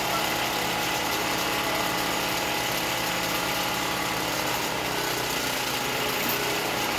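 Engine running steadily at idle, an even drone with no changes in speed.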